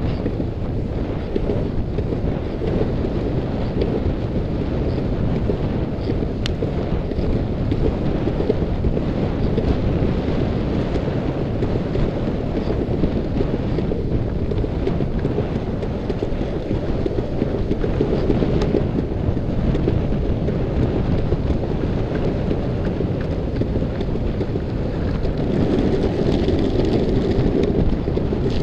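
Steady wind buffeting the microphone of a camera moving fast down a paved path, mixed with the rumble of longboard wheels rolling on asphalt. It grows a little louder near the end.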